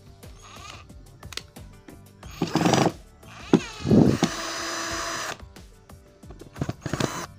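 Cordless drill-driver whirring in several short bursts as it backs screws out of a plastic sprayer casing. The longest run is a steady whirr of about a second, just past the middle.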